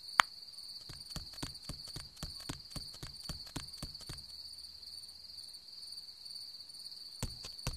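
Cricket chirring ambience: a steady high chirring runs throughout, with a run of faint, irregular clicks and one sharp click just after the start.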